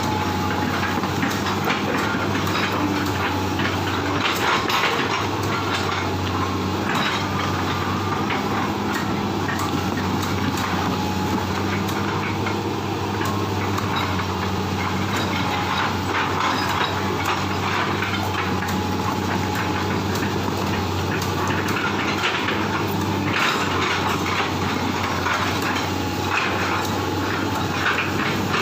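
Excavator's diesel engine running steadily, with scattered knocks and rattles of the machine at work.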